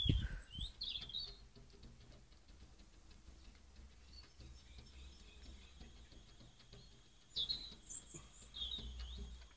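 Faint garden birdsong: short high chirps and twittering shortly after the start and again near the end, over a low steady rumble. A dull thump comes right at the start.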